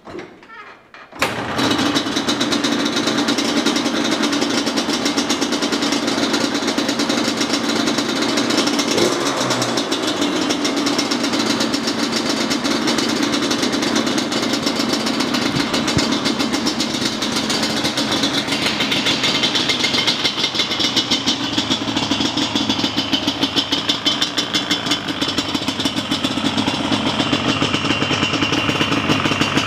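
Yamaha Banshee's twin-cylinder two-stroke engine with FMF pipes, kick-started from cold on choke: it catches about a second in and keeps running steadily.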